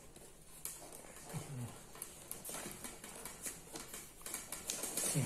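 Rolled newspaper tubes crackling and clicking as they are bent and woven by hand through the stakes of a paper-wicker tray border.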